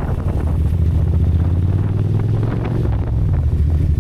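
Motorcycle engine running under way, its drone rising slightly in pitch around the middle, with wind noise on the microphone. Faint short rattles come through over it: the intermittent rattle the riders hear only under heavy load on the throttle.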